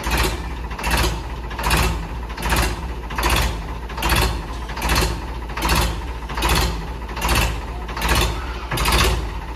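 A machine running with a steady low rumble, and a hissing surge that repeats evenly a little more than once a second.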